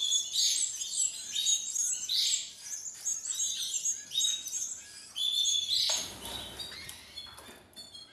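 Canary nestlings about 20 days old giving repeated high begging chirps, one or two a second, for the hen canary. About six seconds in there is a burst of rustling noise as the hen leaves the feeder.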